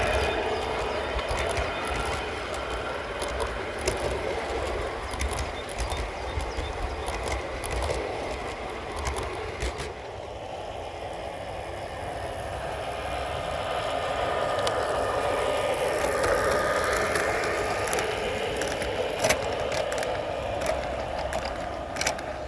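Zero-gauge model train running on garden track: a steady mechanical rattle with scattered sharp clicks. It fades a little about ten seconds in, then grows louder again.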